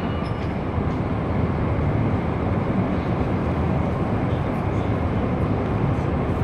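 Steady noise of a large hangar, with faint voices in the background.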